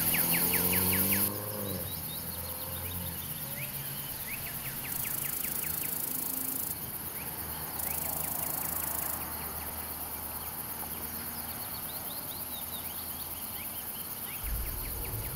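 Countryside ambience: small birds chirping in short rapid trills every few seconds over a steady background hiss and low hum. Music ends about a second in.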